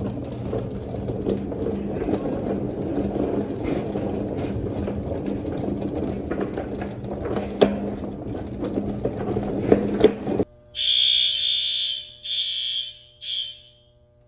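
A steady low hum with scattered knocks and rustling, then an abrupt change to quiet about ten seconds in, where a fire alarm horn sounds three high-pitched blasts, the first the longest.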